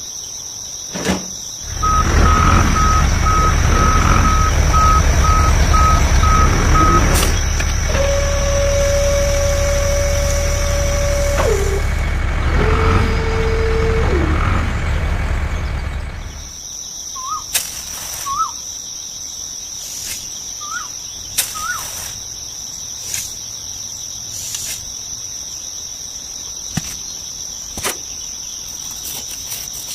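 A mini truck's engine runs with a deep rumble, its reversing alarm beeping steadily over the first few seconds. Two long horn tones follow, each dropping in pitch as it ends. About sixteen seconds in the engine stops, leaving a steady insect trill, a few bird chirps and light clicks.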